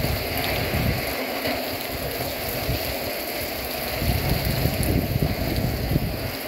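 Rain falling steadily in a hurricane downpour. Wind gusts buffet the microphone in low rumbling swells, about a second in and again from about four seconds in.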